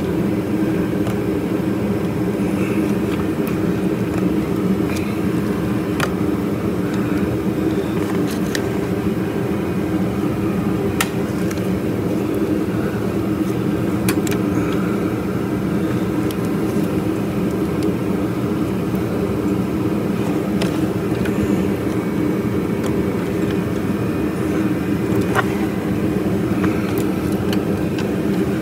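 Steady droning rumble of a shop space heater running, with about half a dozen sharp clicks scattered through it as the A/C line fittings on the expansion valve are worked free by hand.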